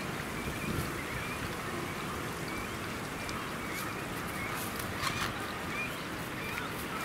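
Outdoor ambience: a steady background hiss and rumble with short, high bird chirps here and there. A brief sharp click comes about five seconds in.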